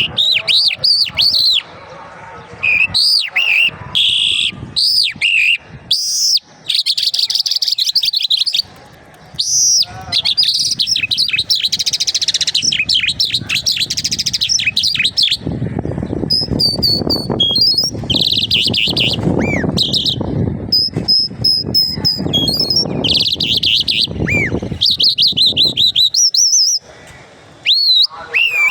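A jal songbird singing: a run of high chirps, quick trills and fast repeated notes broken by short pauses. For several seconds in the middle, a low rumbling noise runs underneath the song.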